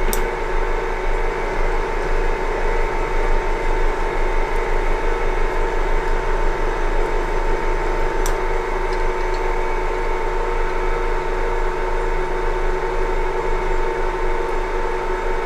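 Metal lathe running steadily under power with its gear train engaged for thread cutting: a steady whine with gear noise and a faint rasp. A sharp click right at the start.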